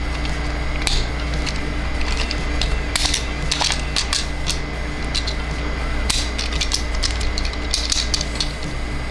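Small plastic toy parts clicking and snapping irregularly as they are handled and moved, over a steady low hum.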